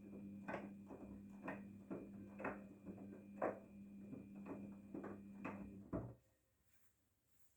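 Daewoo DWD-FT1013 front-loading washing machine running with a steady low hum and regular clicks about once a second. The hum and clicking cut off suddenly about six seconds in.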